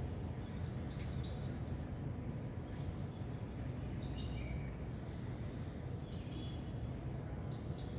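Small birds chirping in short high calls, a few at a time in scattered bursts, over a steady low background rumble.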